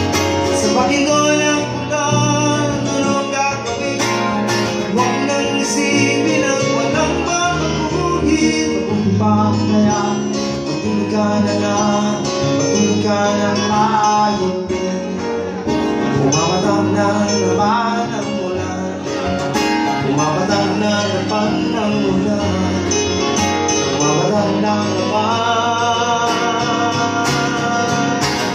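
Live acoustic music: a man singing, accompanied by strummed and picked acoustic guitar and an electric keyboard.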